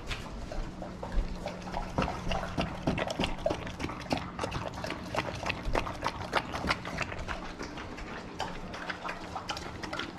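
Rottweilers lapping and slurping a thick frozen fruit-and-yogurt smoothie from stainless steel bowls: rapid, irregular wet licks and tongue clicks against the bowl.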